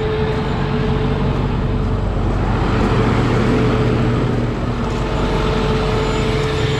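Tow truck engine idling steadily close by, with a constant whine held over the low engine note.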